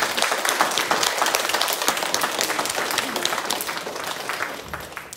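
Audience and cast applauding: a dense patter of many hands clapping together, which thins out and fades near the end.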